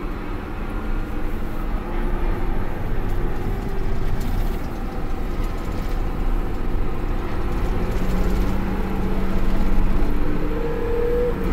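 New Case IH Steiger 580 four-wheel-drive tractor driving down a gravel road, heard from inside the cab: a steady engine drone with tyre and road rumble.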